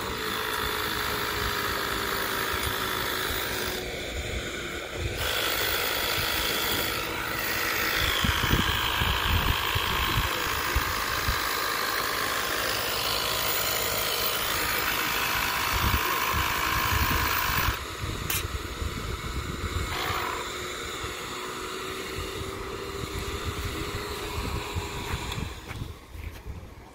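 A large radio-controlled model jet's turbine engine running: a steady whine over a rushing hiss. The sound drops away sharply about eighteen seconds in.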